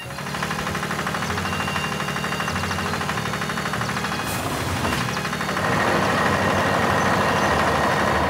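Tractor engine running steadily with an even low throb. About five and a half seconds in, a louder, higher-pitched layer of engine or machine noise joins it.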